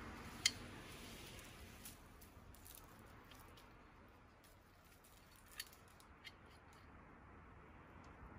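Quiet background with a few light, crisp clicks: one sharp click about half a second in, and two smaller ones around six seconds.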